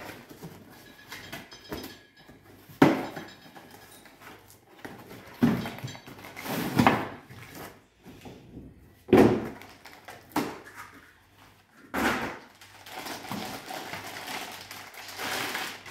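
Cardboard packaging of a new stainless steel pot being opened and pulled apart, with several sharp knocks and thuds of cardboard. Near the end comes a longer stretch of plastic bag rustling as the wrapping is pulled off the pot.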